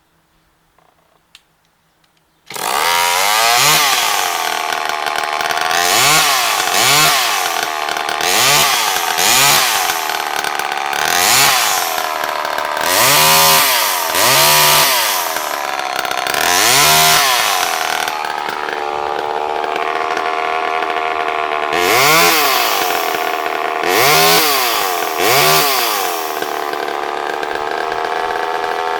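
Homelite Super EZ Automatic two-stroke chainsaw catching and starting about two and a half seconds in. It is then revved over and over, each blip rising and falling in pitch, and settles to a steady idle between a last few blips near the end. It starts easily and runs well.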